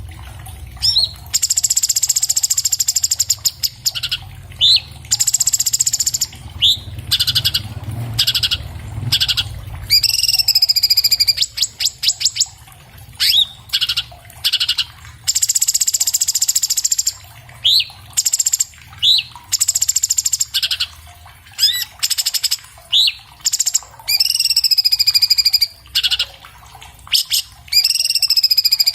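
Orange-bellied leafbird singing a rapid, varied song: bursts of fast rattling trills and bright whistled phrases, with short upslurred notes in between, repeated in phrases of one to two seconds. A faint low hum runs underneath.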